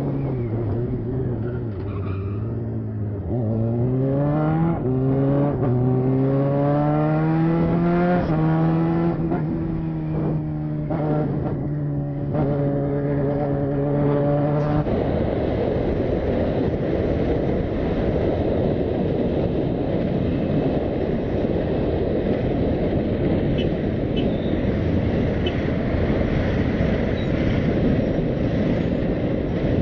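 Sport motorcycle engine accelerating through the gears, its pitch climbing and dropping back at each shift, then holding steady. About halfway through this gives way abruptly to a steady rush of wind and road noise from a motorcycle riding in traffic.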